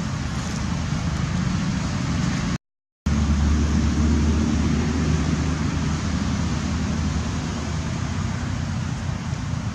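Steady low rumbling noise, broken by a sudden half-second gap of dead silence a little under three seconds in, after which it comes back slightly louder.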